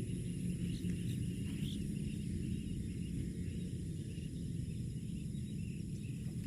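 Outdoor rural ambience: a steady low rumble with insects trilling and faint scattered chirps.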